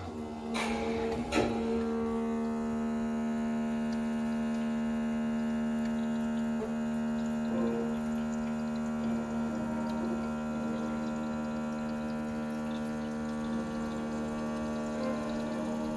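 A steady electric hum with many overtones, starting abruptly and holding at an even level.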